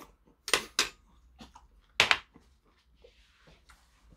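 Loud slurping and mouth sounds of someone eating spicy kimchi stew from a spoon: two sharp slurps about half a second in and a third about two seconds in, with faint small clicks between.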